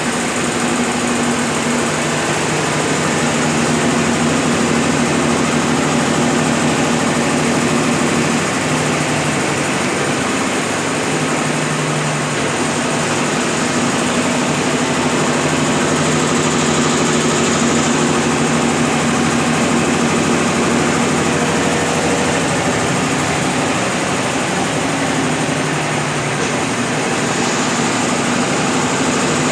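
Brastemp BWL11 11 kg washing machine spinning a load of wet rugs, a steady whirring hum that holds level throughout.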